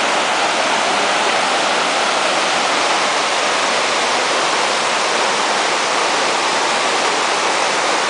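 Fast mountain river rushing over rocks in white-water rapids: a loud, steady rush of water that does not change.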